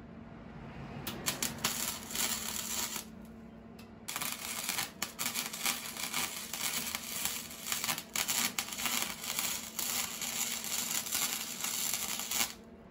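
Electric arc welding on a steel scooter frame: the arc crackles for about two seconds, pauses briefly, then crackles again for most of the rest.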